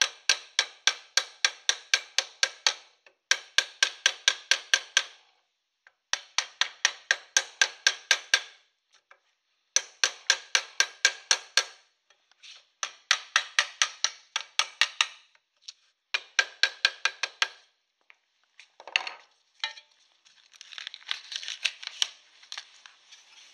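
A wooden mallet hammering the folded flaps of a mild steel sheet shovel down over a steel bar. The blows come quickly, about four a second, in six runs of two to three seconds with short pauses between them. Near the end there is a softer scraping and rustling as the piece is handled.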